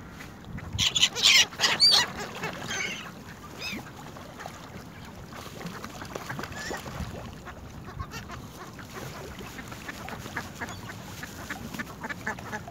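A mixed flock of gulls and mallards calling on the water: a burst of loud, high gull cries about a second in, then a steady patter of short calls from the flock.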